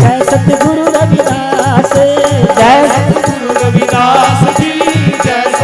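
Devotional folk music played on a harmonium, with sustained melody notes over a steady hand-drum beat.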